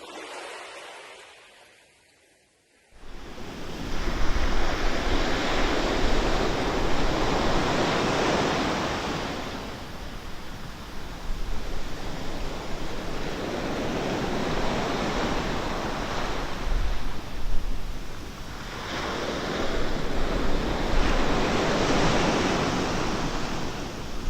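Rushing wind noise that starts about three seconds in after a near-silent moment, then swells and eases in long waves: a wind-rush sound effect for fast FPV drone flight.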